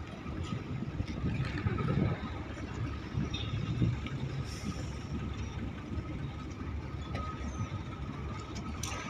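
Steady low rumble of ship engines across the water, with a faint steady higher hum above it.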